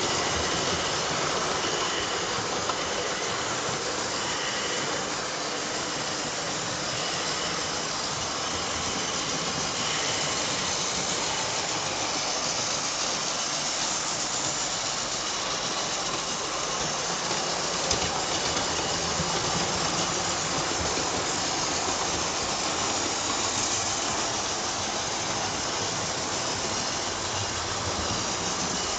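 Several Hornby OO-gauge model trains running round their track together: a steady whir of their small electric motors and wheels on the rails.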